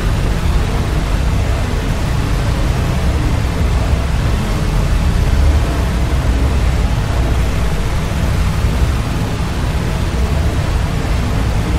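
Sound-designed creature vocal effect: a loud, steady, low rumble with a hiss over it, without clear pitch or pauses.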